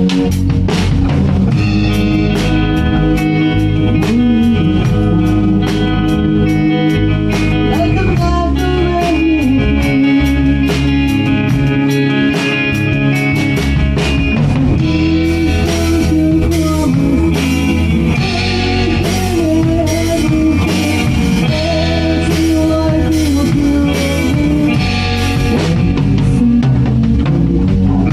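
Live band playing a slow soul ballad: drum kit keeping a steady beat with cymbal hits, under bass and an electric guitar lead that bends and slides its notes.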